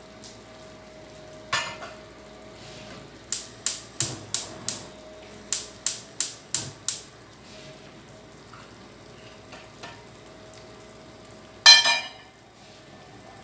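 Gas hob's electric igniter clicking in two quick runs of about five clicks each as a burner is lit under a small pan of butter, followed near the end by a louder ringing metal clink against the pan.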